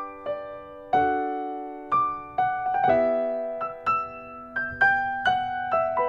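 Slow piano music: sustained chords under a melody of single notes, each struck and left to ring and fade.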